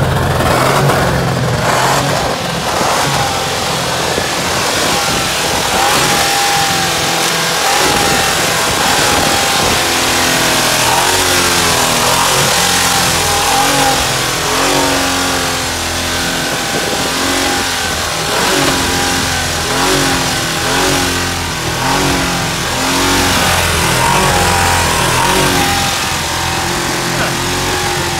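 Ford F-150 engine running hard, its revs rising and falling over and over. It is being run to destruction with pulverized limestone dumped into the oil.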